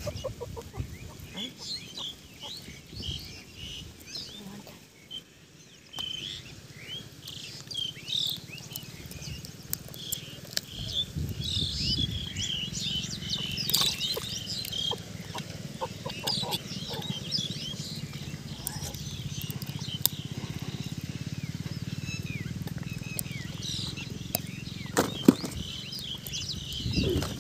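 Birds chirping again and again in short calls, over water splashing and dripping as a large carp is handled and untangled from a gill net in waist-deep river water, with a couple of sharper splashes midway and near the end.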